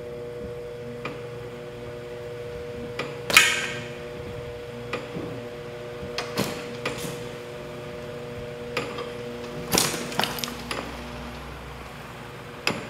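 Electric gear motor driving a conveyor belt with a steady hum, while the belt and the machine's parts give sharp knocks and clatters, the loudest about three seconds in. Another knock comes as a backpack tips off the end of the belt about six seconds in.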